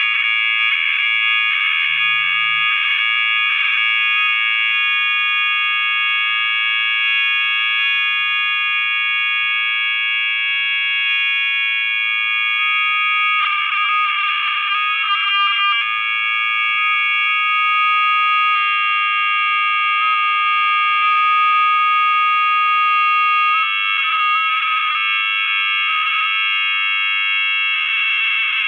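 Loud, steady high-pitched electronic drone made of several held tones layered together, with no rhythm; it grows rougher and shifts briefly about halfway through, then settles and changes tone a couple more times.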